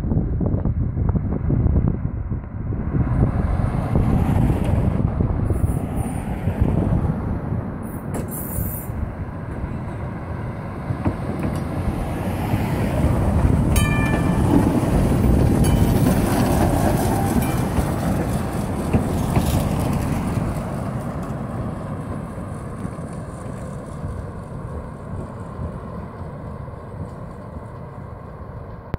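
Heritage electric trolley streetcar running along its track, growing louder as it approaches, passing close by about halfway through, then fading as it pulls away. Wind on the microphone and passing road traffic run underneath.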